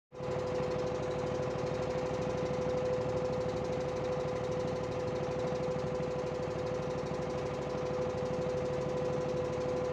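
Inboard engine of a small wooden fishing boat running steadily under way: a rapid, even knocking with a steady high hum over it.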